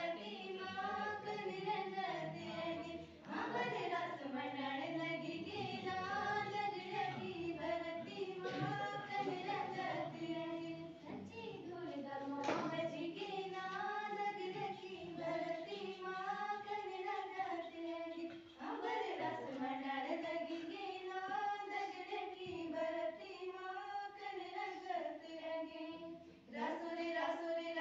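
Schoolgirls singing a Garhwali folk song together without instruments, in repeating phrases of about two seconds with short breaks between verses.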